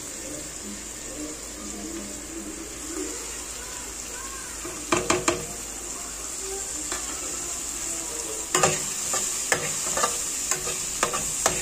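Chopped vegetables and spices frying in mustard oil in an aluminium kadhai, with a steady sizzle. There are a few sharp clicks about five seconds in. From about eight and a half seconds, a spatula scrapes and knocks against the pan in quick, irregular strokes as the spices are stirred in.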